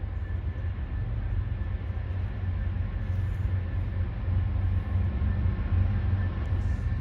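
Diesel freight locomotives rumbling as the train approaches, the low engine rumble slowly growing louder.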